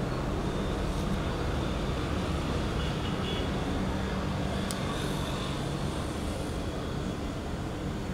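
Steady low background rumble with a faint hum, and one faint tick a little past halfway through.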